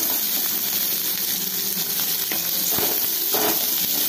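Chopped onions, curry leaves and dals sizzling in hot oil in a steel kadai as they are stirred, with a few knocks of the spatula against the pan.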